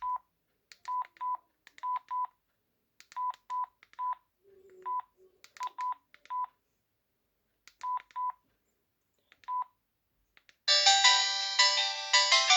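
Bq Flash 2444 feature phone giving short, identical keypress beeps, singly or in quick pairs, about fifteen of them at an uneven pace as its buttons are pressed. Near the end its ringtone melody starts, much louder than the beeps.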